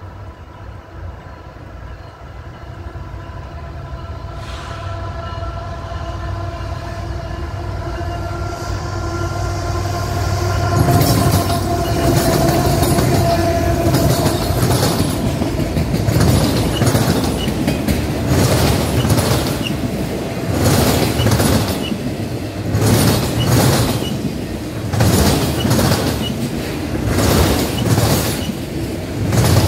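Diesel freight train approaching and passing close by: a rumble with a steady tone grows louder over about the first ten seconds as the locomotive nears. After that, autorack cars roll past with a loud, regular clatter of wheels on the rails, roughly every one and a half to two seconds.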